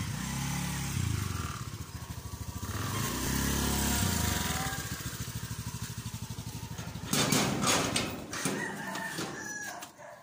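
Honda scooter's small single-cylinder engine running as the scooter rides in, its pitch rising and falling twice; the engine stops about seven seconds in with a few sharp knocks. A rooster crows near the end.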